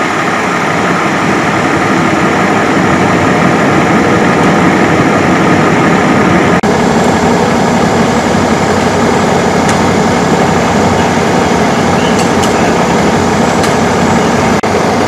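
Heavy vehicle engine idling steadily, with two brief dropouts in the sound.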